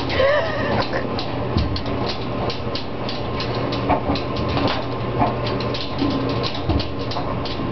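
Laundry machine running: a steady low hum under an uneven stream of sharp clicks and knocks. A short wavering chirp sounds just after the start.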